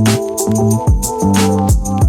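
Electronic background music with a steady beat: a deep kick drum about twice a second under sustained bass and synth notes, with sharp hi-hat hits.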